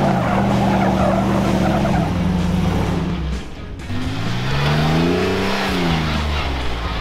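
Off-road vehicle engines working up a rock ledge. First a steady engine drone, then, about halfway through, an engine revving up and easing back down as the Jeep climbs.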